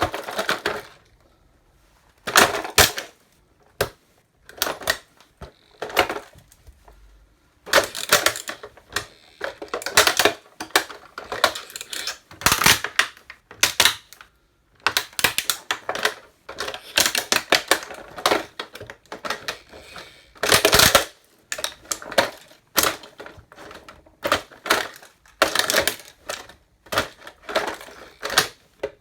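A toy truck being crushed under boots: irregular cracking and crunching, in quick clusters of snaps with short pauses between.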